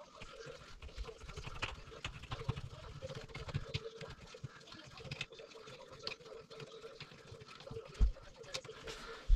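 Faint small clicks and scraping of hand work on a porcelain toilet at the seat hinge, with a low thump about eight seconds in.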